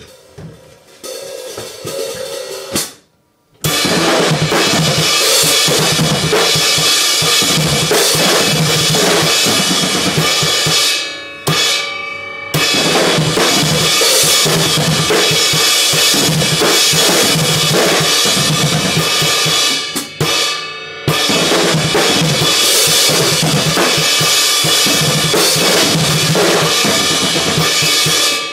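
Drum kit played by hand: bass drum, snare and crashing cymbals. It starts with a few seconds of lighter hits, then breaks into loud, dense playing with short breaks about 11 and 20 seconds in.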